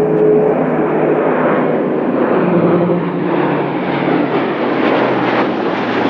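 Airbus A400M's four TP400 turboprop engines and eight-bladed propellers droning loudly as the aircraft passes low overhead. The propeller hum drops in pitch about two seconds in.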